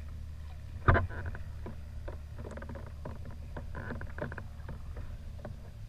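Small waves lapping and slapping against a plastic sit-on-top kayak's hull over a steady low rumble, with one sharp knock about a second in.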